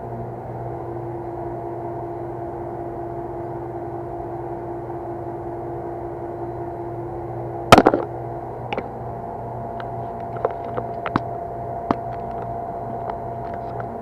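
A steady mechanical hum throughout, with a loud sharp knock about eight seconds in. Scattered lighter clicks and taps follow as the work goes on.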